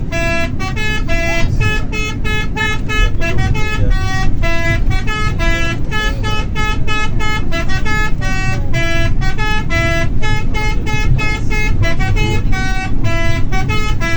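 Indonesian bus 'telolet' horn, a set of multi-tone horns, playing a quick tune of short notes that step up and down several times a second. A low rumble runs underneath.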